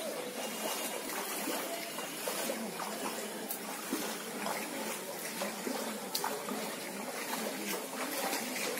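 Floodwater in a flooded street: a steady wash of water noise with scattered small splashes, and faint voices in the background.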